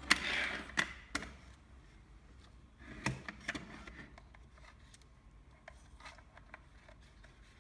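Small parts of a cordless fencing stapler being handled during reassembly: a short clatter with sharp clicks in the first second, another cluster of clicks about three seconds in, then faint scattered ticks.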